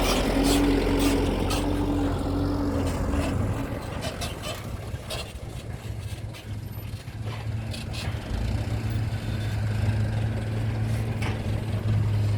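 Heavy machinery engine running steadily at a low pitch, with a higher steady tone that stops about three and a half seconds in, and scattered clicks and knocks over it.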